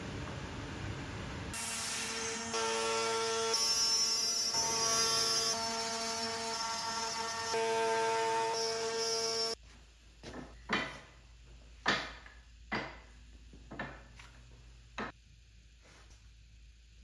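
A handheld trim router running steadily at high speed as it cuts along a wooden board. It cuts off about nine and a half seconds in and is followed by a handful of sharp, separate wooden knocks from parts being handled on the workbench.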